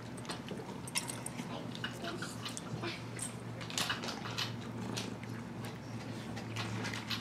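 Cat chewing crunchy dry cat treats and pawing the plastic treat-dispensing toy: a string of irregular, crisp little clicks and crunches, over a steady low hum.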